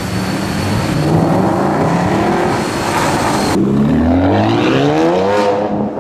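Supercar engine revving hard under acceleration; its pitch wavers at first, then climbs steeply for about a second and a half before fading near the end.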